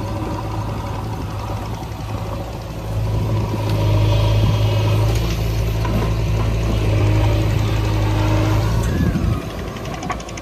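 Diesel engine of a JCB 3DX backhoe loader running under load while its backhoe digs and swings soil. The engine gets louder about three seconds in and eases off again near the end.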